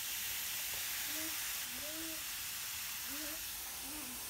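Garden hose spray nozzle spraying water onto potted plants: a steady hiss.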